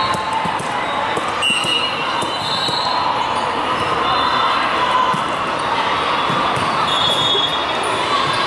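Busy indoor volleyball hall din: a steady wash of many voices, with scattered thuds of balls being hit and bounced and brief high squeaks.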